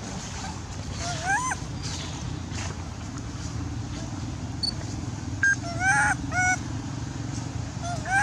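Short, high cries of a young long-tailed macaque, each rising and falling in pitch: one about a second in, a quick run of several near the middle, and another at the end. A steady low rumble runs underneath.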